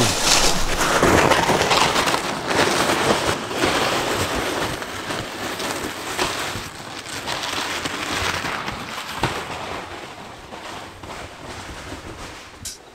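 Footsteps crunching through snow and a plastic sled scraping over it, with crackly rustling and wind on the microphone, gradually getting quieter.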